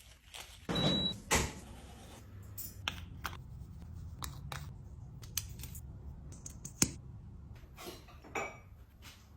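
Household clatter: scattered knocks and clicks, with one short high beep about a second in, over a low steady hum.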